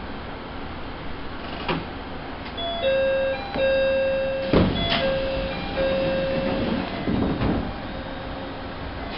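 Electronic chime playing a short melody of sustained, stepwise notes for about four seconds, starting about three seconds in, over the steady rumble of a railcar standing at a station. A few clunks sound around it.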